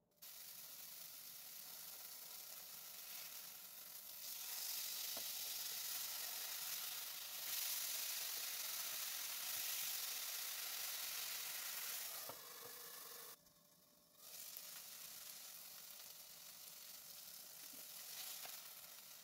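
Spice-marinated fish fillets frying in oil in a nonstick pan: a steady sizzle that grows louder about four seconds in and drops away briefly about two-thirds through.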